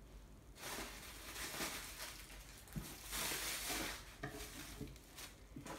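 Plastic bags crinkling and rustling as bagged stacks of plastic cups are handled inside a cardboard box, with small knocks, loudest about three seconds in.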